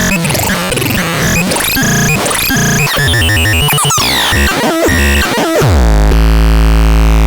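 Magardan Ardnach CN 6010 electronic sound device putting out a chaotic stream of glitchy synthesizer tones with rapid pitch jumps and glides. About five and a half seconds in, a falling sweep settles into a loud, steady low drone.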